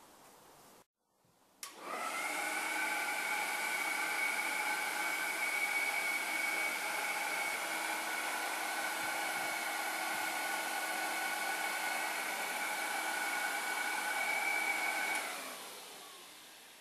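Airsled appliance mover's portable electric blower switching on with a click about a second and a half in and running steadily with a high whine, feeding air to the perforated neoprene lifting beams that float a range cooker; near the end it is switched off and winds down.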